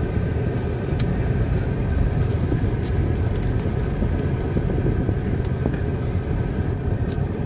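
In-cabin noise of a car driving on a gravel dirt track: a steady low rumble of tyres and engine, with scattered small sharp clicks.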